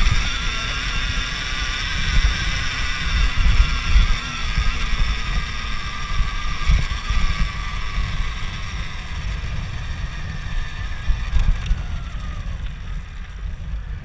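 2018 Alta Redshift MXR electric dirt bike motor whining while riding up a dirt trail, a layered high whine that drops in pitch about eleven to twelve seconds in as it eases off. Wind buffeting on the microphone and a rough low rumble run underneath.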